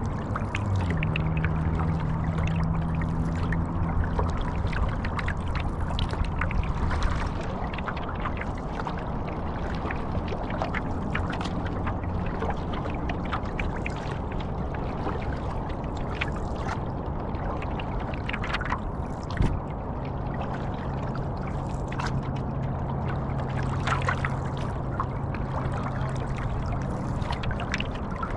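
Stand-up paddleboard paddle dipping and pulling through river water, with water splashing and trickling off the blade. A low steady hum comes in twice, and there is one sharp knock about two-thirds of the way through.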